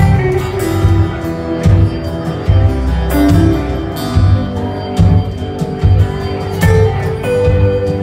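A live rock band playing, with electric and acoustic guitars, keyboard and drums, over a steady kick-drum beat.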